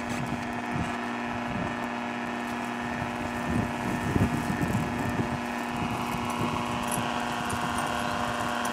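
Aqua 712 automatic radio direction finder running, giving a steady hum made of several fixed tones over an even hiss, with a few irregular low rumbles in the middle.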